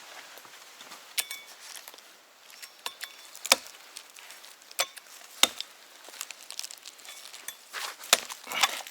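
A blade chopping a chaga growth off a birch trunk: several sharp, irregular knocks and clicks spread unevenly, with a cluster of strikes near the end.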